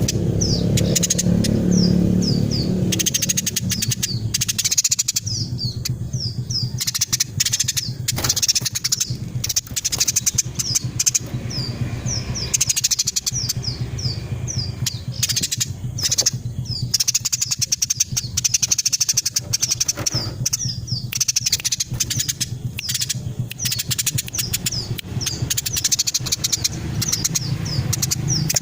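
Female Eurasian tree sparrow chirping rapidly and without let-up, a dense run of short high chirps, over a low rumble that is strongest in the first few seconds.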